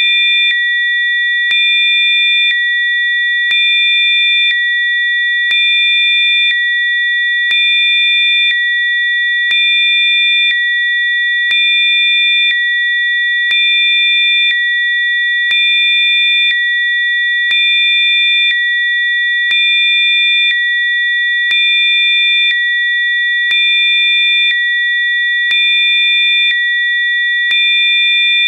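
Electronically generated pure sine tones of a Rife frequency track: several steady high-pitched tones held together. Fainter tones switch in and out about once a second, with a soft click at each change.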